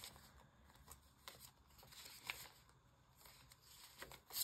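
Faint handling of polymer banknotes being counted out by hand: soft rustling with a few sharp flicks, the loudest near the end.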